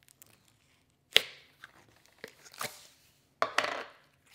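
Thick slime being poked and squeezed by hand, giving short crackling, squelching bursts: one about a second in, another midway, and a longer, loudest one near the end.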